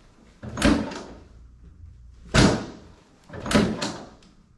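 Chiropractic drop table's padded section dropping under the adjuster's thrusts: a few sharp slams, each with a brief ring-out, about a second apart, the last two close together.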